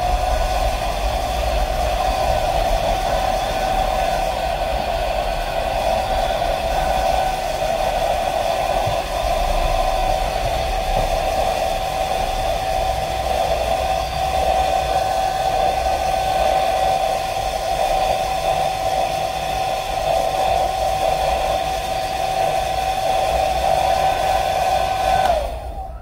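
Hair dryer running steadily on hot air with a fixed whine, warming the phone's double-sided adhesive tape to make it sticky again; it is switched off near the end.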